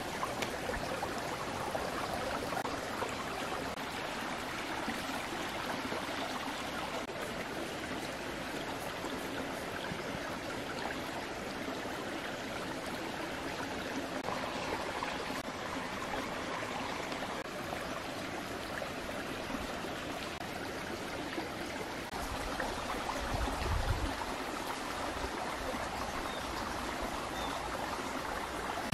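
Steady outdoor rushing noise, like flowing water in a stream, with a brief low rumble about three quarters of the way through.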